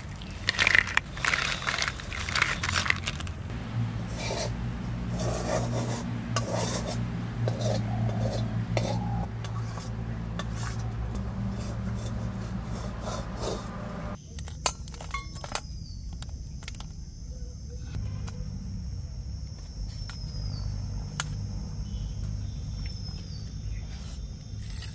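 Metal wok scraping and clinking against a clay plate as crab curry is tipped out of it, with several sharp clinks in the first few seconds. About fourteen seconds in the sound changes abruptly to scattered sharp clicks of crab shell being bitten and cracked, over a steady high tone.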